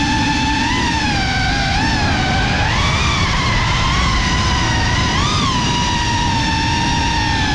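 A 3.5-inch ducted FPV cinewhoop's brushless motors and propellers whining steadily over a rush of wind and prop wash. The pitch wavers with throttle and rises briefly several times, most of all about three seconds in.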